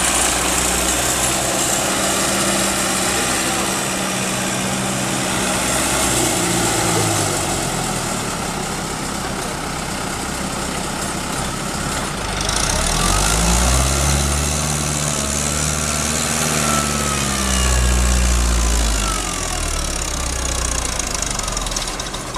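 Fiat tractor's diesel engine working under load. It runs steadily at first; in the second half its pitch rises, holds and falls back as the engine pulls harder, and this is the loudest part.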